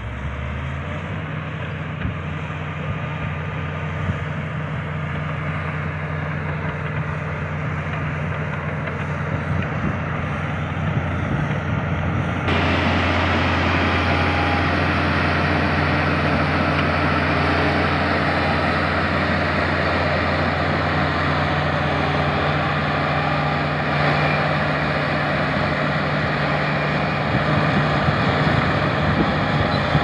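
Diesel engine of a LiuGong crawler bulldozer running steadily while it works the ground with its blade. The steady low hum grows louder as the machine comes closer and jumps louder about twelve seconds in.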